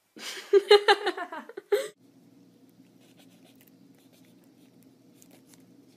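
A mechanical pencil scratching on paper as someone writes, faint over a low steady hum. It follows a loud, choppy burst of voice about two seconds long at the start.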